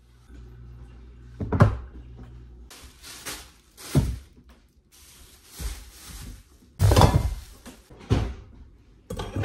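Groceries and a wooden cutting board being set down on a kitchen countertop, with plastic produce bags rustling: about five sharp knocks among the crinkling.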